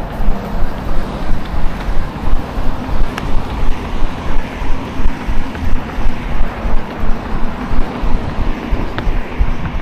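Footfalls of a person running, a steady rhythm of about three steps a second, with wind buffeting the microphone.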